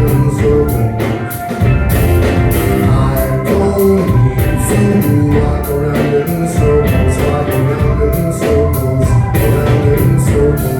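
Live rock band playing an instrumental stretch: a drum kit keeps a steady beat over heavy bass and other instruments, with no sung words.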